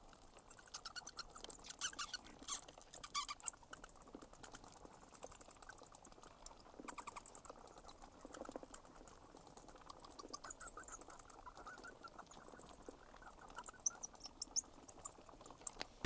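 Bat chittering: rapid trains of high, sharp squeaks and clicks in bursts, with short pauses between them.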